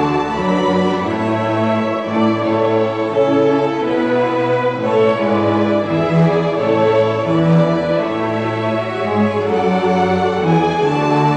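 String orchestra playing held, bowed chords that change about once a second, with cellos and double bass strong in the low notes.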